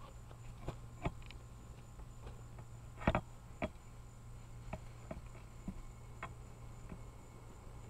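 Handling of a packed nylon tent carrying case: a scattering of short rustles and light clicks, the loudest about three seconds in, as the bag is laid on the ground and its cinching straps are worked. A steady insect drone runs underneath.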